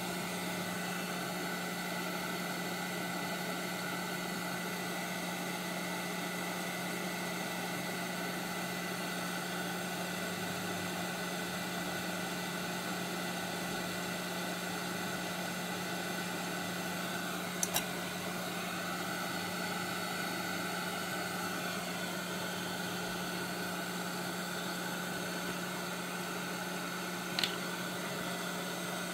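Steady whirring hum of a small electric fan motor on a workbench. Two brief sharp ticks sound over it, one a little past halfway and one near the end.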